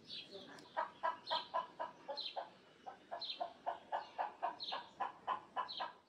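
A hen clucking in quick, even calls, several a second, with higher falling chirps about once a second.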